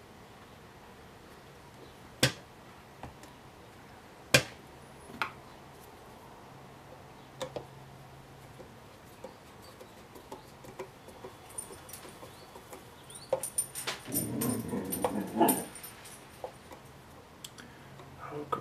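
Small metal carburetor parts and a screwdriver clicking and tapping on a metal parts tray as a Briggs & Stratton carburetor is put back together, with two sharp clicks early on. About two-thirds in, a dog stirs close by, with scuffling and a faint metallic jingle.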